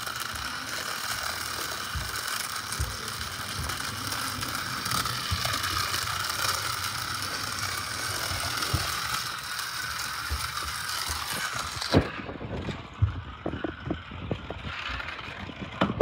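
Toy police car's small battery motor whirring as it runs along a plastic segmented track, with a steady rattling clatter of its wheels on the plastic pieces. About 12 seconds in, the whirring cuts off, and a few sharp knocks and plastic clicks follow.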